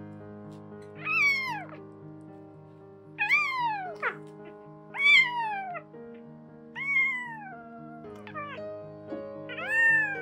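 A young kitten meowing five times, about two seconds apart, each call rising and then falling in pitch. Background music with sustained keyboard chords plays underneath.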